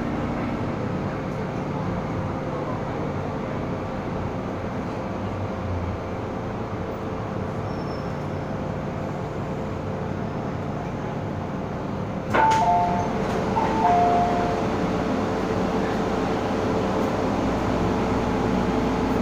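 MTR M-Train running in the tunnel, heard from inside the car: a steady rumble as it slows into the station. About twelve seconds in, a sharp knock as the doors open, followed by a two-tone door chime sounding twice, high then low. A steady hum follows.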